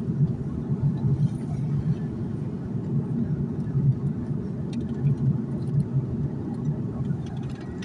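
Steady low cabin noise of a jet airliner in flight, heard from a window seat inside the cabin.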